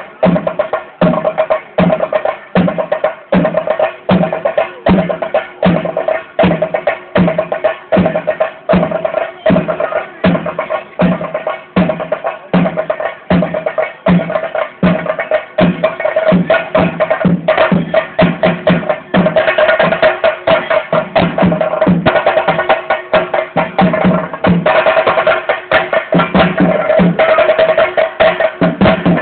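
Theyyam ritual drumming: drums struck in a steady beat of about two strokes a second, growing denser and faster in the second half, over a steady ringing tone.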